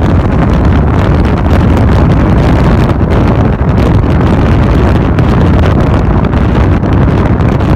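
Loud, steady wind rush buffeting the microphone, with the low rumble of a car driving at speed.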